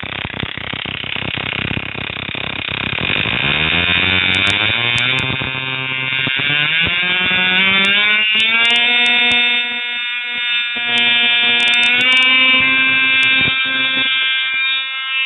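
A 190 mJ moped ignition firing across a test spark gap: rapid snapping sparks that speed up until they merge into a buzz rising in pitch as the spark rate climbs. About halfway through the buzz levels off and holds a steady high pitch, with a brief dip near the end.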